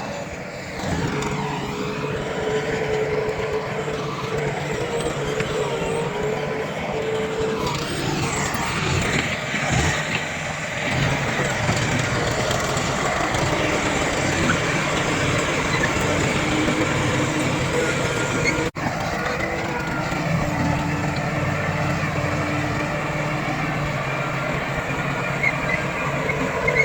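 Heavy diesel earthmoving machinery, bulldozer and dump trucks, running steadily under load, with the engine pitch wavering a little. There is a brief break about two-thirds of the way through.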